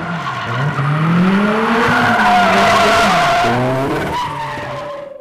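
Toyota 86's 2.0-litre flat-four engine revving hard while its tyres squeal and skid as the car slides sideways through a corner. The engine pitch climbs and then drops, and the tyre squeal is loudest in the middle before the sound fades away near the end.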